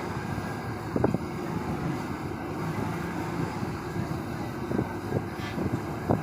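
Fast boat under way: a steady low rumble with strong wind buffeting the microphone. A few sharp knocks come about a second in and again near the end.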